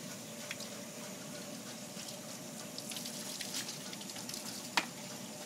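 Garden hose running a thin stream of water, a steady hiss, with a few faint clicks and one sharp click near the end.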